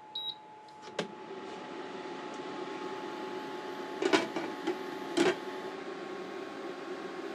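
An induction cooktop beeps once as its touch control is pressed, clicks about a second in, and then its fan and coil hum steadily as it heats the pot. The pot's glass lid clatters against its rim twice, about four and five seconds in.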